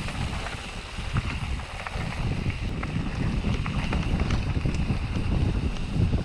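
Canyon Neuron mountain bike rolling downhill over a wet gravel and dirt trail, a steady rumble of tyres and wind buffeting the microphone, with scattered small clicks and rattles from stones and the bike.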